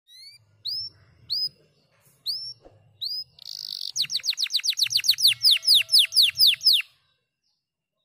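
Domestic canary singing: a few separate rising whistled notes, a short buzzy note, then a fast trill of falling notes at about five a second that stops about a second before the end.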